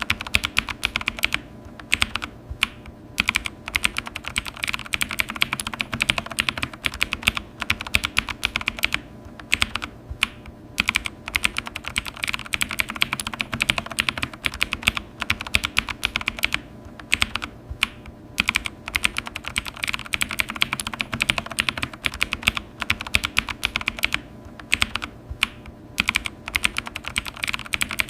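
Typing on a computer keyboard: quick, irregular runs of key clicks with a few brief pauses between bursts.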